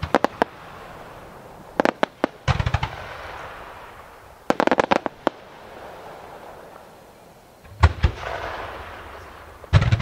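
Aerial fireworks shells bursting. Clusters of sharp bangs and crackles come every couple of seconds, each followed by a rolling echo, with the loudest bang coming a little before the end.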